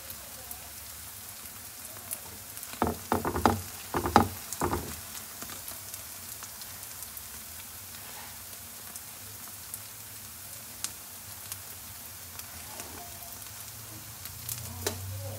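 Bánh chưng (sticky rice cake) pan-frying slowly in oil until crisp: a steady sizzle with scattered small pops. A brief run of sharp knocks and clatter comes about three to five seconds in.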